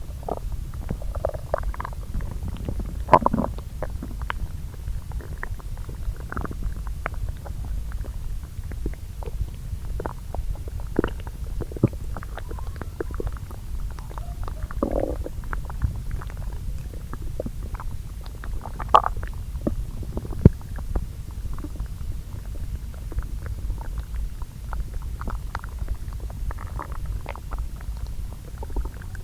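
Human lower-intestine bowel sounds, two recordings layered: gas and liquid churning through the gut. A steady low rumble runs under frequent small pops and clicks and short gurgles. The loudest are single sharp pops about three seconds in and twice close to the twenty-second mark.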